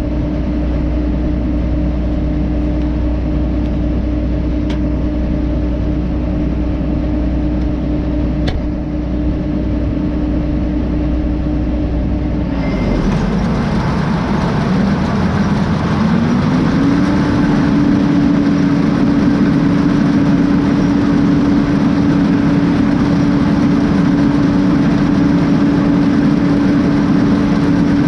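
Combine harvester running steadily in the field with a constant hum. About halfway through, the sound changes abruptly and the hum drops in pitch, then climbs back a few seconds later and holds steady.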